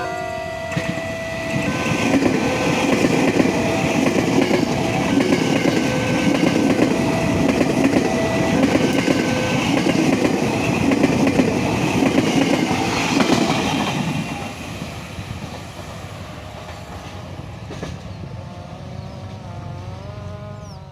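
Ex-Tokyo Metro 6000 series KRL electric commuter train passing close by, its wheels rumbling and clattering over the rails. Loud for about twelve seconds, then falling away after about 14 seconds as the train moves off.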